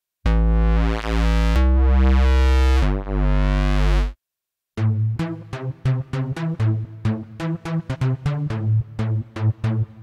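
u-he Zebra2 software synthesizer lead presets. First a thick, buzzy sustained lead plays three held notes for about four seconds. After a brief silence, a bright staccato pattern of short plucked notes follows at about four notes a second.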